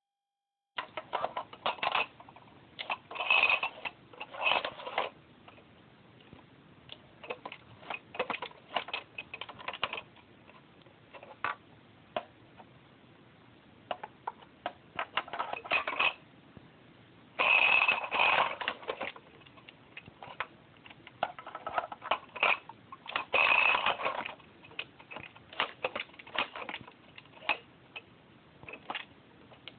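Hard plastic clicking and clattering as a hollow plastic hippo toy is handled and knocked about, with a flashlight loose inside it rattling. Irregular clicks throughout, with a few longer, louder spells of rattling.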